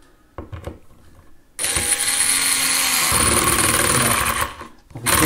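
Black and Decker 9019 electric screwdriver, freshly fitted with an 18650 lithium-ion battery, running under load as it drives a screw into scrap wood, its clutch set to the lowest setting. The motor and gearbox whine steadily for about three seconds, starting about one and a half seconds in, after a few light knocks.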